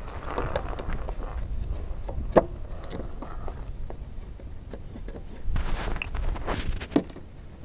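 Handling noises as a model airplane's rear hatch cover is fitted onto the fuselage and pressed into place: soft rubbing and knocking with a few sharp clicks, the loudest about two seconds in and another near the end, over a low rumble.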